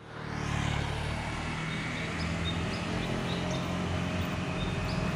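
A steady low engine hum with road noise. Short high bird chirps come in every second or so over it.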